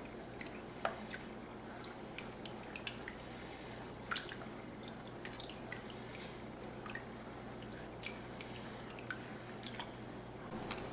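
Wooden spoon stirring thin chili broth in an enameled cast-iron Dutch oven: soft sloshing and dripping liquid with scattered light clicks of the spoon against the pot, over a faint low hum.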